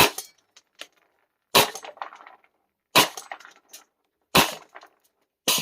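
Five shots from a FLAK 10 gas-powered airsoft shotgun, one about every second and a half. Each sharp crack is followed by a brief scatter of small clicks as the spread of ten BBs strikes the target.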